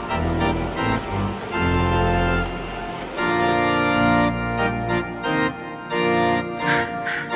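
Organ-led music: a run of held chords that change about every second.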